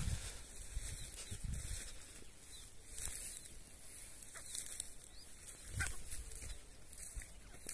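Footsteps and handling bumps from someone walking through dry grass onto a field, with a steady high hiss and a few faint high chirps.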